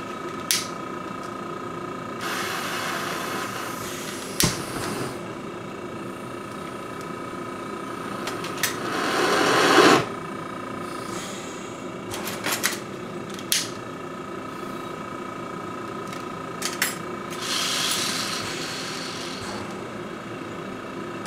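Oxygen concentrator humming steadily with a constant tone, while small metal tools click and knock now and then. Three brief swells of hiss, the loudest building for about a second and a half and cutting off sharply near the middle.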